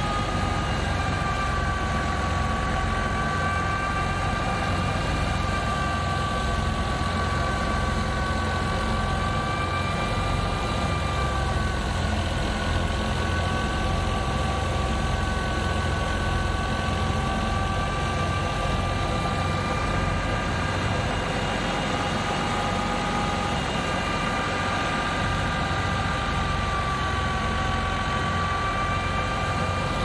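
Fiat 480 tractor's three-cylinder diesel engine running steadily under load, driving a wheat thresher by its shaft. Together they make a continuous low rumble with a high whine that wavers slightly in pitch.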